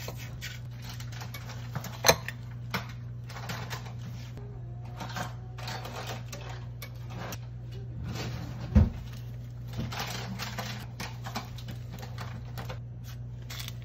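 Irregular light taps, scrapes and crinkles of a spoon and fingers working a crumb crust into paper liners in a metal muffin tin, with a sharp click about two seconds in and a heavier thump near the middle. A steady low hum runs underneath.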